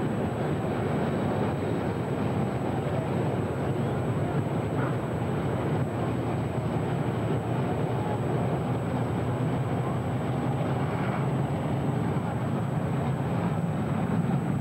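Steady, unbroken rumble of stock car engines running around the track, heard from a distance.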